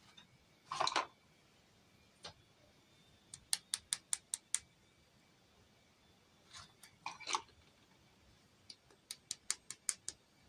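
Miniature toy pieces handled close to the microphone: two short rustling scrapes, each followed by a quick run of about seven light, sharp clicks.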